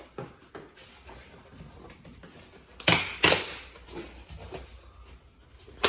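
A pry bar scraping and jabbing at a bathroom's layered linoleum floor: two short, loud rasps about three seconds in, among a few fainter scrapes and ticks.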